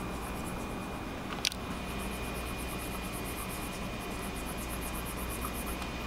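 Wacom Cintiq Companion 2's cooling fan running steadily at its second fan level under Photoshop load: an even hiss with a faint steady high tone. A single sharp click about one and a half seconds in.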